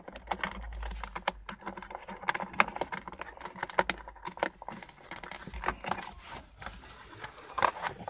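Irregular clicks, taps and rattles of hands handling the hard plastic casing of a 12 V portable thermoelectric cooler/warmer, with a louder cluster of clicks near the end.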